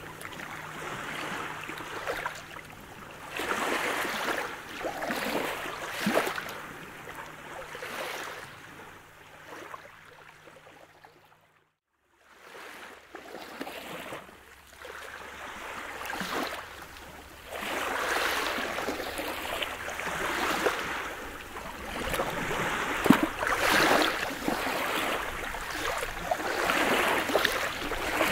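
Small calm-sea waves washing onto a pebble beach, swelling and falling back every second or two. The sound cuts out to silence for under a second about twelve seconds in, then the waves resume.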